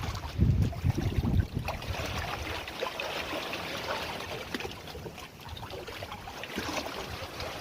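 Water trickling and splashing in a continuous crackling hiss, with wind buffeting the microphone in the first second or so.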